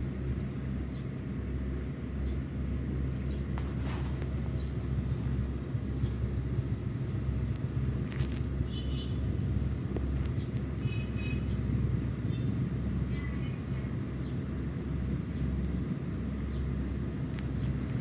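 Wind rumbling and buffeting on the microphone, unsteady in strength, with a few faint high chirps around the middle.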